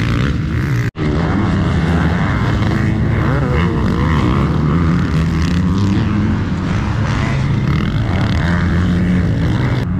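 Motocross dirt bike engines running and revving hard on the track. The sound cuts out for an instant about a second in.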